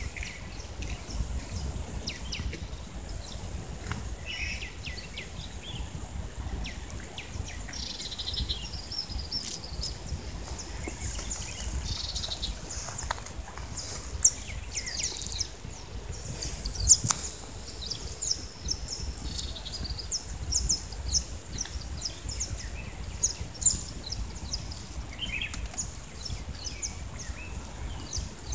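Birds chirping and calling throughout, with many short high chirps over a low steady rumble, and a few sharper clicks standing out.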